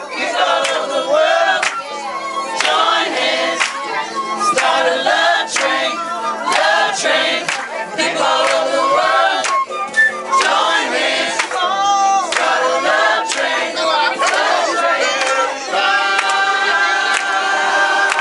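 A group of people singing together, with a flute and an electronic keyboard playing along; near the end, steady held notes come through under the voices.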